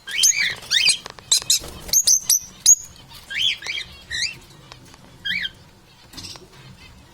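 Parrots calling: a quick run of short chirps and whistles mixed with sharp clicks over the first few seconds, then a few separate chirps.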